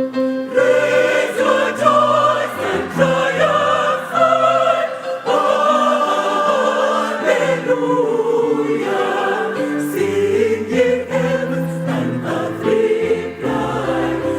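Choir singing loudly in harmony, several voice parts sounding together.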